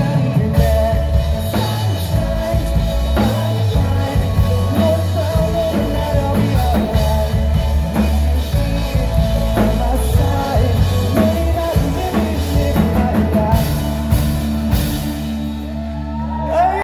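Live rock band playing a song: a sung melody over drum kit, guitar and bass.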